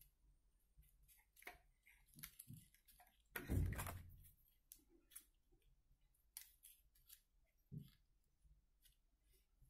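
Faint paper rustling and small clicks from hands pressing glued paper quilling strips onto card, with one louder rustle and thud a little over three seconds in.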